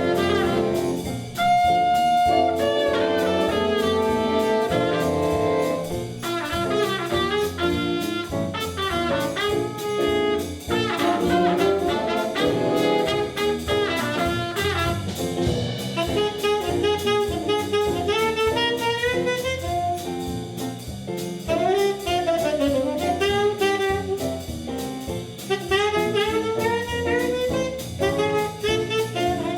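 A jazz ensemble playing, with saxophone and brass melody lines over a drum kit beat.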